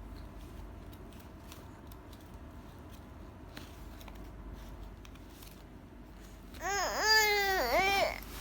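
A baby's voice: high-pitched babbling that rises and falls in pitch for about a second and a half near the end, after several seconds of faint small clicks.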